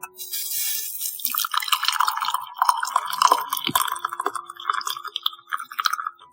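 Boiled milk poured from a saucepan through a strainer into a glass: a light hiss at first, then a fuller splashing, trickling pour from about a second in that runs on steadily.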